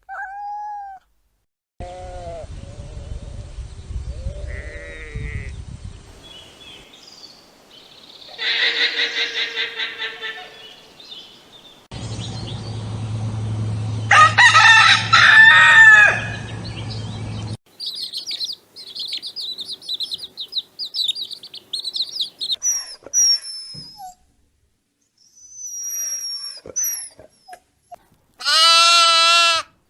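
Separate farm-animal recordings cut one after another: poultry calling, with a rooster crowing, then high chirping calls, and near the end a goat bleating.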